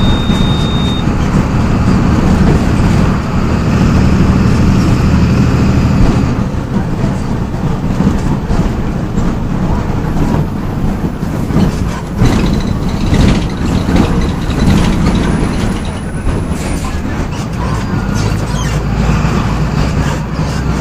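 MWM 6.12 TCAE six-cylinder turbodiesel of a Volksbus 17.210 bus running hard, then easing off about six seconds in and running on at lower power, with a few knocks midway.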